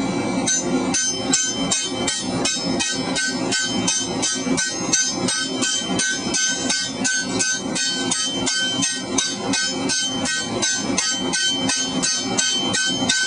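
Hand hammer striking a tapered shouldering tool against hot steel pipe on an anvil, a steady run of about three blows a second, each with a metallic ring. The piece is being gradually tapered down into a rush tip.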